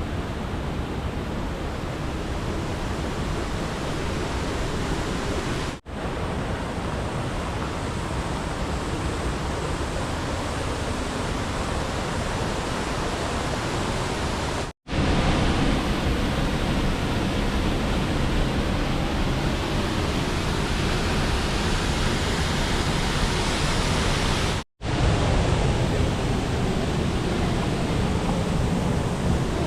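Waterfall: a steady rush of falling water. It drops out abruptly three times, about 6, 15 and 25 seconds in, and is louder after the second break.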